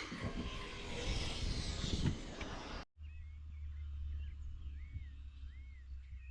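Wind buffeting the microphone with rushing noise and low thumps. About three seconds in it cuts abruptly to birds calling in short arching whistles over a steady low hum.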